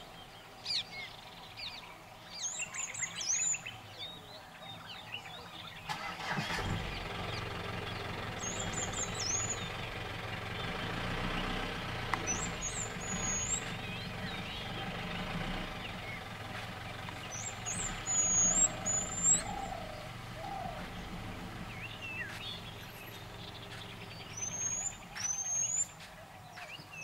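A vehicle engine starts about six seconds in, runs steadily, and fades out about fifteen seconds later. A bird gives short, high whistled calls in little groups again and again, the loudest of them a little past the middle.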